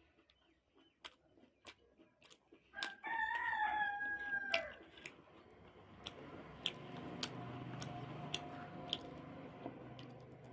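A rooster crowing once, about three seconds in, a single drawn-out call that falls off at the end, over scattered small clicks of eating. A steady hum follows for a few seconds afterwards.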